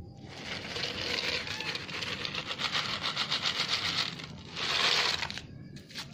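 Crackly, crinkling rustle for about four seconds, then after a brief pause a second, shorter and louder rustle.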